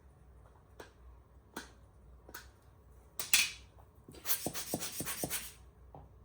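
Camera lens being handled and cleaned: three small clicks about a second apart, then a short sharp hissing burst. After that comes about a second and a half of rubbing and scraping with several clicks in it.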